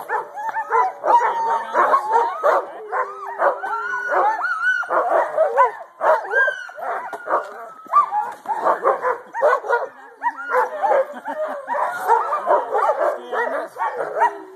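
A team of sled dogs barking, yipping and whining continuously, many calls overlapping, the excited clamour of harnessed sled dogs waiting to set off.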